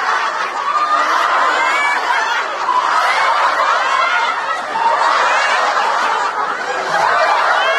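A group of people laughing together in a laughter yoga exercise: many voices overlapping in continuous, deliberate group laughter.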